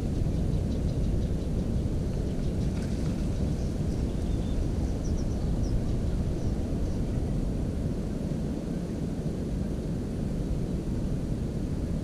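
Steady low rumbling noise, with a few faint, short high bird chirps near the middle.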